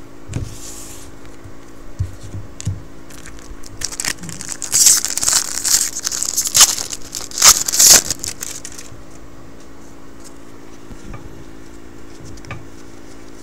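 The wrapper of a jumbo pack of 2012 Topps football cards being torn open and crinkled. The crackly rustling starts about four seconds in, is loudest around six to eight seconds, and stops about nine seconds in.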